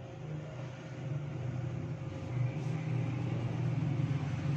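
A steady low mechanical hum with a thin steady whine above it.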